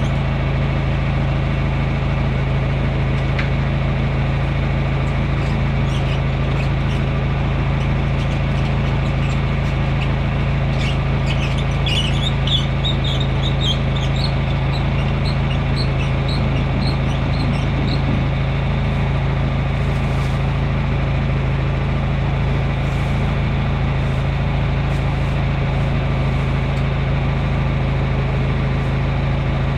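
An engine idling steadily, with an even low hum. A series of short high chirps rises and falls over a few seconds in the middle.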